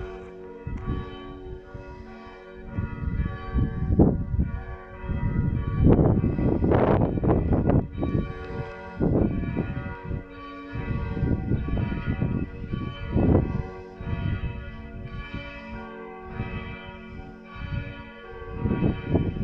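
Several church bells ringing together, their strikes falling irregularly and overlapping while the tones ring on between them.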